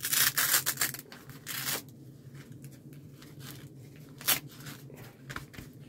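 Rustling and crinkling of a beekeeping suit's fabric being handled, in quick bursts over the first two seconds, then a single sharp click about four seconds in.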